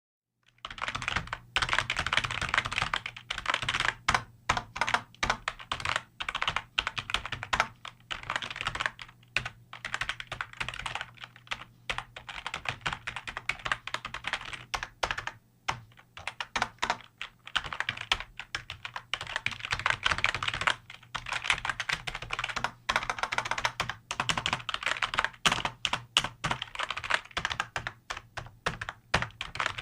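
Fast typing on a computer keyboard: a rapid stream of key clicks in bursts with brief pauses, starting about half a second in.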